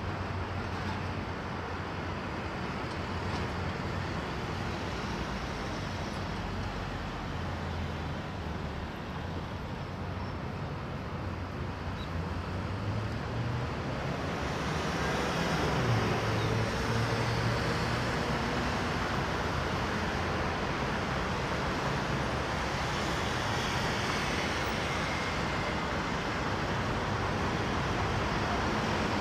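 Road traffic at a busy multi-lane city intersection: a steady wash of car, van and truck engines and tyre noise, growing somewhat louder about halfway through as more vehicles pass.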